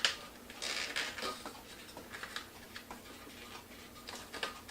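Long latex twisting balloons being handled and twisted, giving irregular light rubs and clicks.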